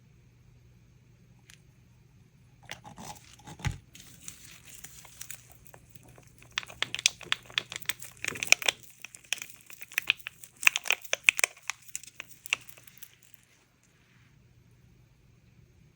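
Crinkling and crackling of handled plastic, with a single knock about four seconds in, then a dense run of sharp crackles and clicks for about six seconds that stops abruptly near the end.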